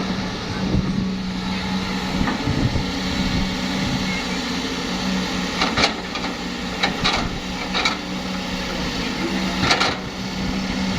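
Heavy diesel engine running steadily at a constant speed, with a few short sharp knocks or clanks in the second half.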